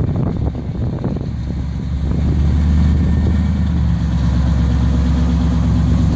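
First-generation Chevrolet El Camino's engine idling, a little uneven for the first couple of seconds, then running steadily and slightly louder.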